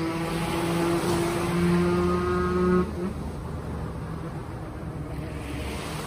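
A motor engine running at a steady pitch over breaking sea waves, cut off abruptly about three seconds in, leaving only the wash of the surf.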